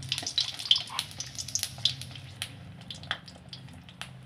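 Dried round red chillies sizzling and crackling in hot oil in a steel kadai, stirred with a perforated steel ladle, as they are roasted until the raw smell goes. The crackle is dense at first and thins out over the last couple of seconds.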